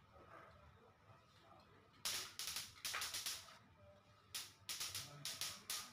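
Paintbrush strokes on a rough, textured painted plywood board: two runs of several short, hissing strokes, one about two seconds in and one a little after four seconds.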